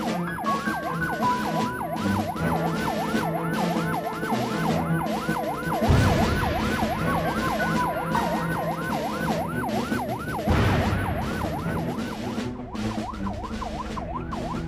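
Electronic emergency siren on a rescue pickup truck, running in a rapid yelp that rises and falls over and over, with vehicle noise underneath and a couple of low thumps.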